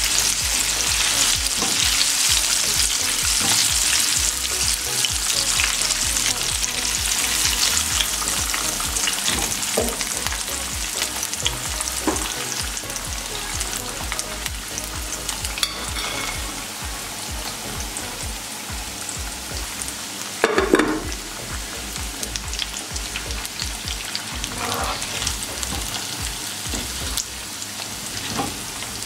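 Chicken pieces deep-frying in hot oil, the sizzle slowly dying down after the burner is turned off, while a wire skimmer and spatula scrape and clink in the pan as the pieces are scooped out. There is one louder knock about twenty seconds in.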